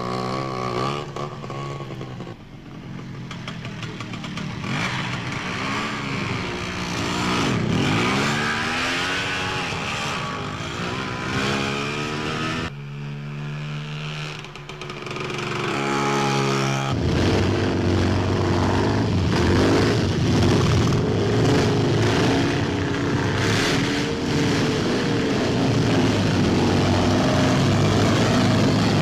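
Motor scooter and motorcycle engines running and revving, the pitch rising and falling repeatedly. The sound cuts sharply about 13 s in to a steady engine note, and from about 17 s a louder, steadier engine sound runs on.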